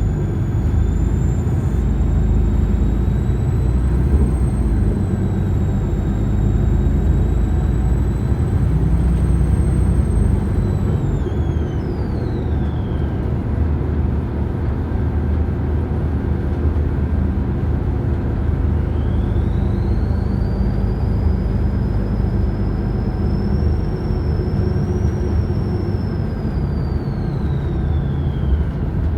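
A bus running with a low rumble, over which a high-pitched whine holds steady, glides down and fades about twelve seconds in, then rises back about twenty seconds in and glides down again near the end. This whine is the odd sound the bus is making.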